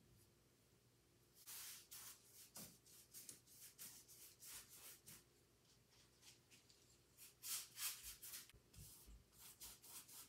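A paintbrush scrubbing paint across canvas: a run of short, irregular swishing strokes starting about a second and a half in, loudest a little past the middle.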